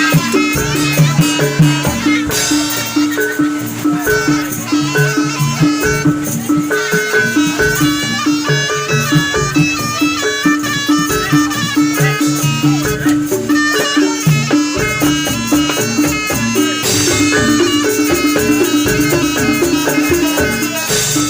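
Jaranan accompaniment music played live. A reedy wind melody, typical of the slompret shawm, runs over a steady, even pattern of pitched gong strikes and drumming.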